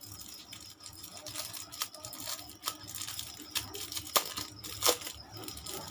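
Plastic lamination pouches and their clear plastic packet being handled: crinkling and rustling with a few sharp clicks and ticks, the louder ones about two to five seconds in.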